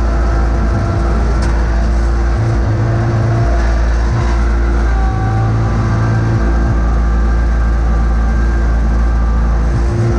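John Deere X585 garden tractor engine running steadily under load while its front plow blade pushes snow across pavement.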